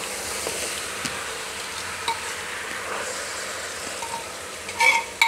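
Jackfruit curry sizzling in an aluminium pressure cooker while a spoon stirs and scrapes through it, with a short clink against the pot about five seconds in.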